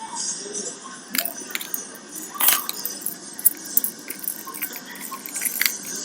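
Rustling handling noise with scattered clicks and knocks, the loudest about two and a half seconds in.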